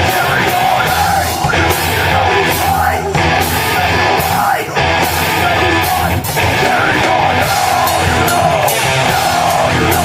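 A rock band playing loud, heavy music live.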